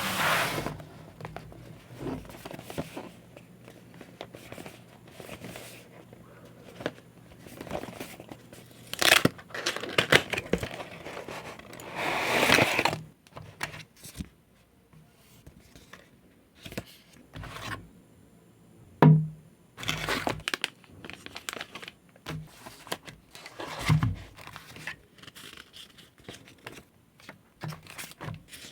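Product packaging being handled and opened, with plastic crinkling and tearing among irregular taps and clicks. There are louder rustling bursts about a third and nearly half way through, and a sharp knock about two-thirds through.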